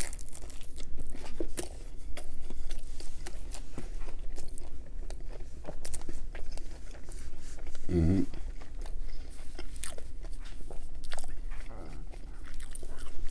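Close-miked chewing and crunching of a bite of Pizza Hut pan pizza with a boneless chicken bite on it: many small crisp crunches and wet mouth sounds. A brief hum of the voice comes about eight seconds in.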